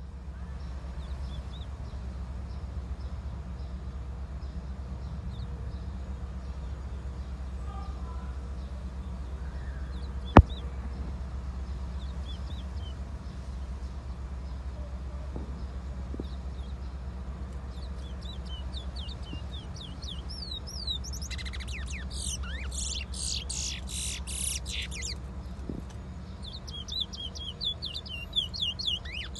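Chestnut-bellied seed finch (towa-towa) singing. Faint scattered chirps come first; from about two-thirds of the way in there are fast runs of rapid twittering notes, loudest near the end. A steady low hum runs underneath, and one sharp click comes about a third of the way in.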